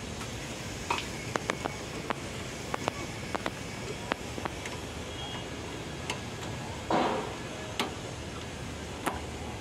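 Small, sharp metallic clicks and taps of an Allen-key driver working the screws of a CNC plasma cutter's control panel, irregular and scattered, over a steady background hum. A brief louder sound comes about seven seconds in.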